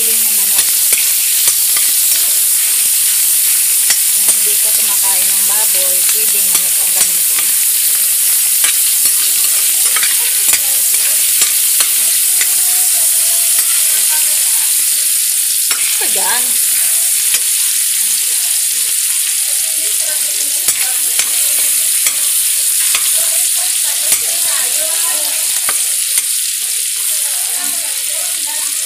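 Ground pork, garlic and onion sizzling in hot oil in a pan, with a metal spoon scraping and clicking against the pan as it is stirred.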